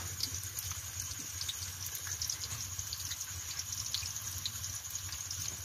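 Garlic and ginger frying in hot oil in a wok: a steady sizzling hiss with many small scattered crackles.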